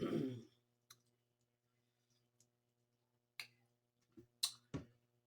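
A brief voiced 'mm' of enjoyment, then scattered sharp clicks and mouth smacks from eating, with several coming close together near the end.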